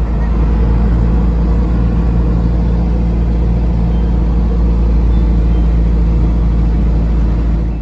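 Unimog truck driving at a steady speed: a constant engine drone and heavy low road rumble, cutting off suddenly at the end.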